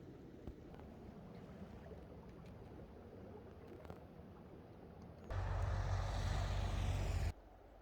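Wind gusting across the microphone: a faint steady rush, then about five seconds in a loud two-second blast of rushing noise with a heavy low rumble that starts and cuts off abruptly.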